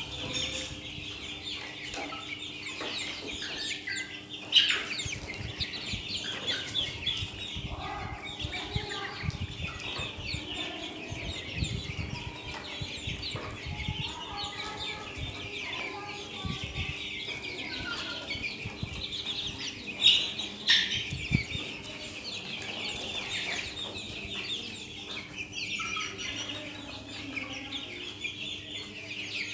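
A flock of Australorp chickens clucking and calling all through, many birds at once, with two sudden loud bursts, about four seconds in and about twenty seconds in.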